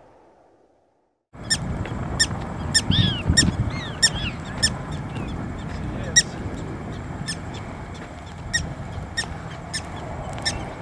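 Black-tailed prairie dog calling in a run of short, sharp, high-pitched barks, about one or two a second, over a steady low background noise. It starts suddenly about a second and a half in, after closing music fades out.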